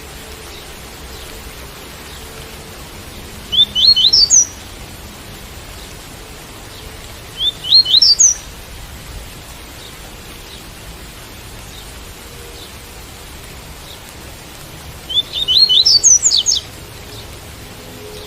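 Coleiro tui-tui (double-collared seedeater) singing the tui-tui song type: three short phrases of quick rising chirps, about 4, 8 and 16 seconds apart, with the last one the longest. Steady rain hiss underneath throughout.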